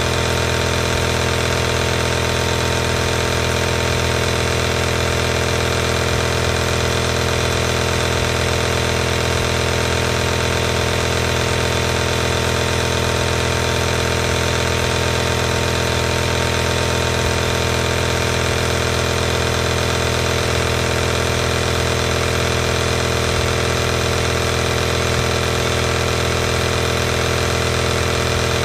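Home compressor nebulizer running: its electric air compressor gives a constant hum, steady in pitch and level throughout.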